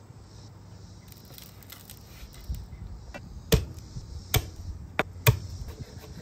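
Chef's knife knocking against a bamboo cutting board while cutting garlic cloves: about five sharp knocks in the second half.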